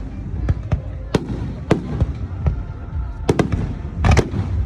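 Aerial fireworks bursting: sharp bangs at irregular intervals over a continuous low rumble, coming thick and fast in a cluster near the end.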